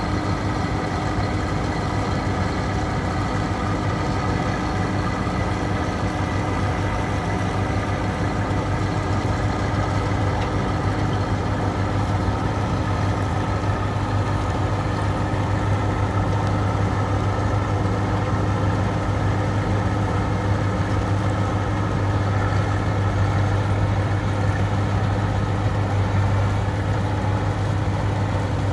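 A heavy engine running steadily at a constant speed, with a strong low hum and a dense mechanical rattle over it.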